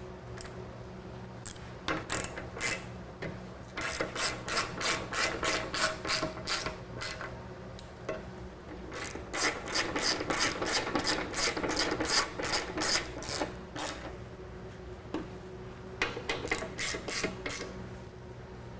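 Hand ratchet wrench clicking in several runs of quick strokes, about three clicks a second, as a bolt is run down and tightened.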